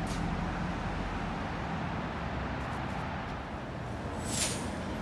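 Steady city background noise: a continuous rumble of distant road traffic. A brief high-pitched sound cuts in a little over four seconds in.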